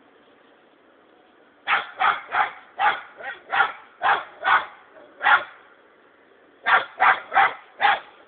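A young German hunting terrier (Jagdterrier) bay-barking: a run of about nine sharp barks, a short pause, then four more in quick succession. This is a bay bark, the dog standing over a hedgehog it has found and holding it with its voice.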